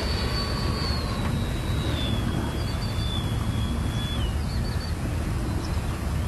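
Twin Taiwan Tornado 120mm electric ducted fans of a radio-controlled A-10 jet model whining in flight, a thin high whine that drops in pitch about two seconds in and again near four seconds in before fading. Steady wind rumble on the microphone underneath.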